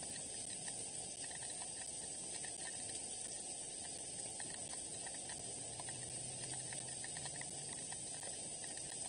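Steady hiss with faint scattered ticks, light rain falling on and around the nest as heard through a nest camera's microphone. A faint low hum comes in about six seconds in and fades a couple of seconds later.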